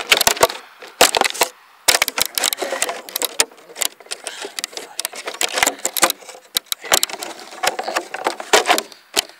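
A quick, irregular run of sharp clicks, knocks and rattles, like plastic and metal parts of an RC snow vehicle being handled and clicked back together.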